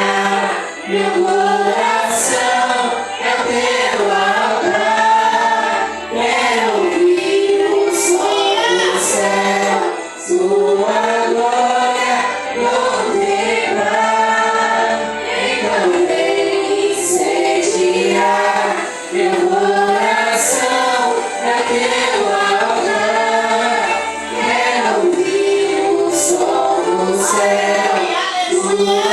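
A vocal group singing a worship song together, several voices sustaining a continuous melody.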